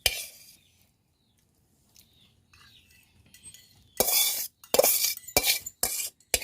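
Metal kitchen utensils clinking and scraping against cookware: one sharp clink at the start, then a quiet stretch, then a quick run of loud scrapes and clatters from about four seconds in.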